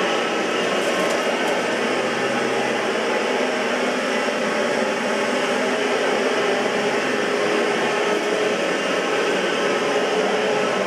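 Oreck XL21 upright vacuum cleaner running steadily, its motor holding an even pitch.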